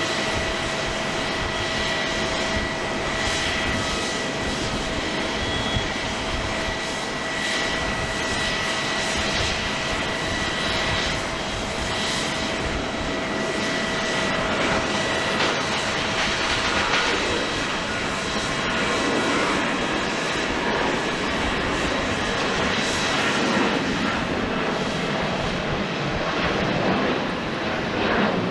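Boeing 737-800's CFM56 jet engines running with a steady rush, carrying a faint high whine that fades out about two-thirds of the way through.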